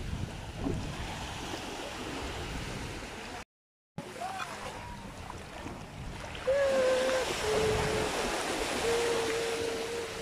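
Small sea waves washing onto a sandy shore, with wind on the microphone. A brief dropout to silence falls just before the middle. From about six seconds in, a person's voice holds three long, steady notes, louder than the surf.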